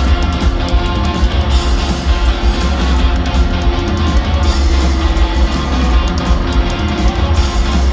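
Rock band playing live: electric guitars and a drum kit over heavy bass, in an instrumental passage with no singing.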